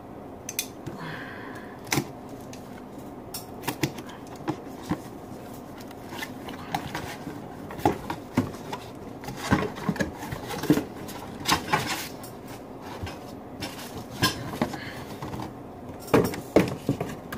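Cardboard box being opened and handled: scattered knocks, taps and scrapes of the cardboard flaps and the packing inside, busier in the second half.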